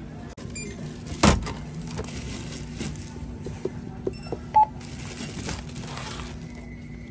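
A few short electronic beeps, the loudest about halfway through, with a sharp knock about a second in. A steady high tone sets in near the end.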